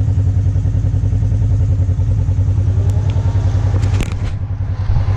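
Four-wheel-drive off-road vehicle's engine idling steadily close to the microphone, with a few sharp clicks about four seconds in.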